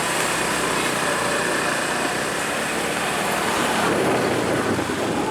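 A motor vehicle engine running steadily, heard amid a wash of outdoor noise, which swells briefly about four seconds in.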